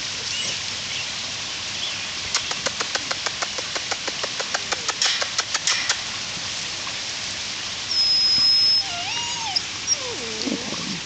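Outdoor yard sounds: a run of rapid light clicks and crackles for a few seconds, then a single high steady whistle, then short, bending, whimper-like puppy sounds near the end.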